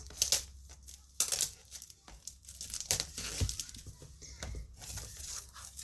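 Plastic wrap being pulled and crinkled off a cardboard box, with irregular crackly rustling and two sharp clicks, about a quarter second and a second in.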